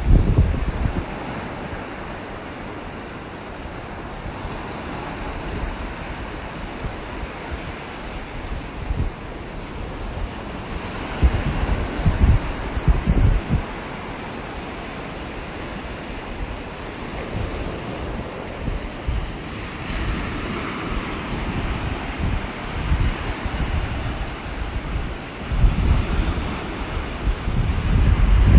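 Ocean surf washing on a beach, with wind buffeting the microphone in gusts.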